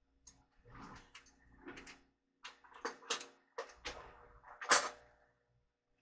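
A series of clicks and knocks from objects being handled in a kitchen, irregular, about a dozen, with the sharpest knock near the end.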